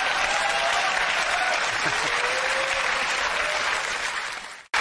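Studio audience applauding, fading away quickly just before the end.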